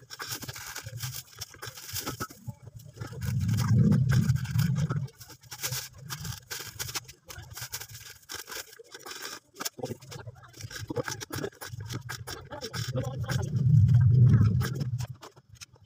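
Plastic shopping bags rustling and packed goods knocking as items are bagged by hand. Two low rumbles of about two seconds each come a few seconds in and near the end.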